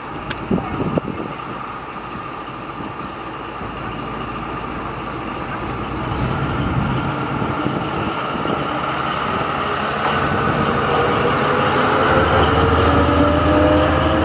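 Narrow-gauge BDŽ Class 75 Henschel diesel-hydraulic locomotive running as it pulls its train past, growing steadily louder. A low hum sets in near the end, with a whine that rises in pitch as the coaches roll by.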